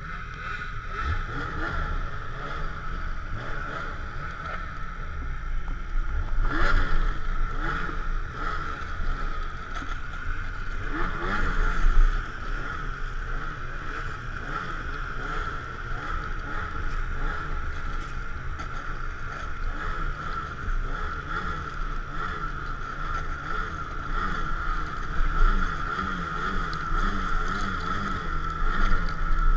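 Ski-Doo Summit snowmobile engine running under way, a steady high whine over a low rumble with wind on the microphone; it surges briefly about seven and again about twelve seconds in.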